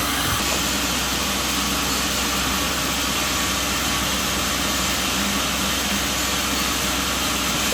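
Sawmill machinery running steadily: an even, unbroken noise with a low engine hum underneath.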